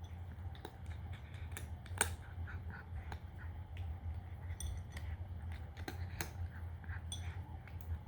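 A cat crunching dry kibble: irregular sharp crunches and clicks, the loudest about two seconds in, over a steady low hum.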